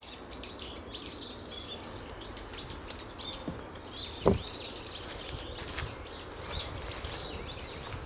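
A flock of small birds calling: a rapid string of short, high arched chirps. A single loud thump about four seconds in.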